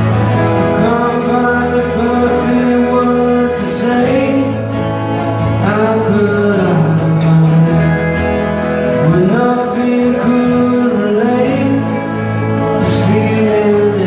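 Live unplugged band music: acoustic guitars with a male voice singing over sustained low notes.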